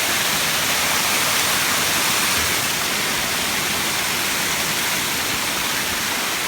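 Waterfall rushing in a steady, loud roar of falling water.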